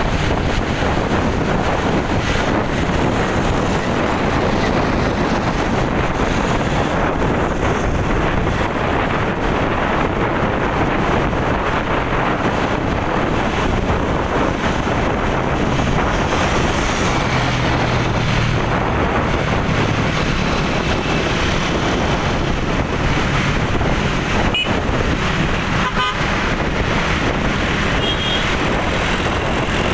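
Steady rush of road traffic and wind noise. Short vehicle horn toots come a few times in the last few seconds.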